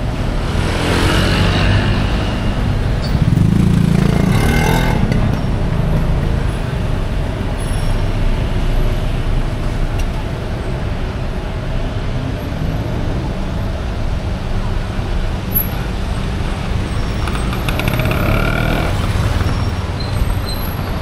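City street traffic: a steady rumble of motor vehicles, with louder passes about one to five seconds in and again near the end.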